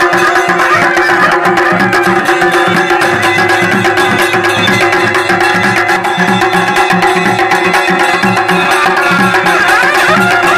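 Kumaoni folk band playing: a masakbeen (bagpipe) sounds a wavering melody over its steady drone, while dhol and damau drums keep a steady, regular beat.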